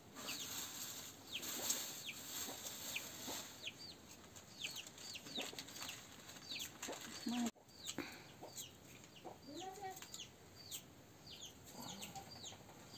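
Chickens in a farmyard: a steady run of short, high, falling peeps, several a second, with a few lower clucks mixed in.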